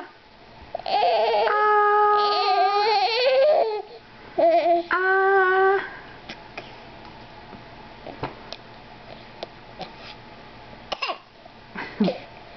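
Baby babbling in drawn-out, high-pitched sounds, in two long stretches over the first six seconds. After that come a few small clicks and one short sound near the end.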